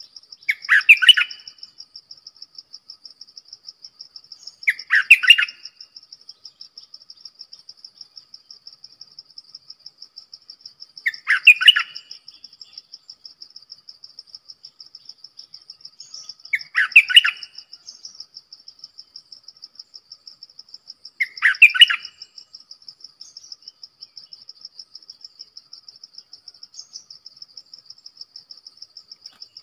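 Stripe-throated bulbul singing five short song phrases a few seconds apart, over a steady, high, pulsing insect trill.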